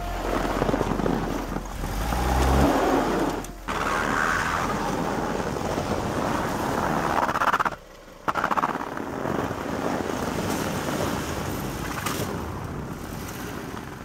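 Toyota RAV4 driving through deep snow: the engine runs under load amid the rushing noise of tyres churning through snow. The sound drops out briefly just before the eight-second mark.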